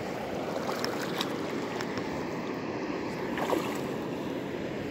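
Shallow water lapping and trickling over a rocky shore, a steady wash with a few faint splashes.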